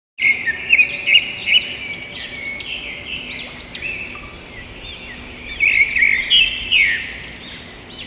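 Songbird chirping: a quick, continuous run of high, looping chirps that starts suddenly, louder at first and again about six seconds in.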